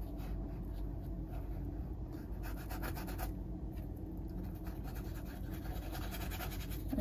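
Paintbrush bristles scrubbing and scratching over a canvas as acrylic paint is spread and blended, in irregular strokes.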